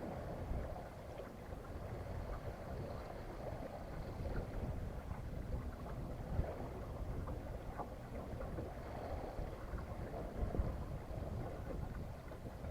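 Wind rumbling on the microphone over water washing along the hull of a small sailboat under sail, with a few faint small clicks.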